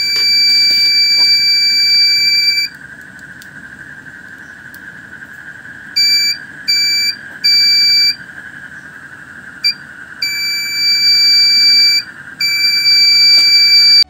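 Buzzer of a homemade BC547 fire alarm circuit sounding a steady high-pitched tone that cuts in and out. A long tone comes first, then a few short beeps about six seconds in, then two longer tones near the end.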